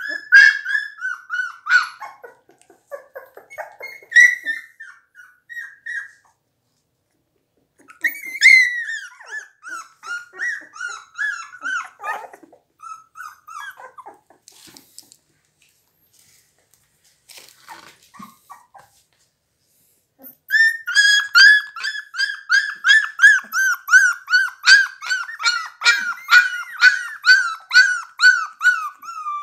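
Pit bull puppies, 17 days old, whimpering and crying in high-pitched whines that fall in pitch, in spells with short silences between. About two-thirds of the way through, the crying turns into a quick steady run of short squeals, roughly two a second.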